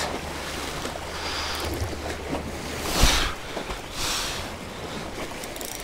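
Small waves washing and splashing against shoreline rocks, with wind rumbling on the microphone; a louder splash comes about three seconds in.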